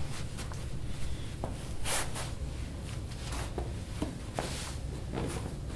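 Soft handling noises: four or five brief rustling swishes of fabric and a few faint clicks, over a steady low hum.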